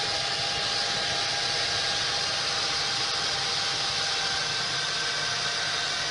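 Dell PowerEdge R720 server's cooling fans running steadily, an even rush of air with a faint constant whine in it.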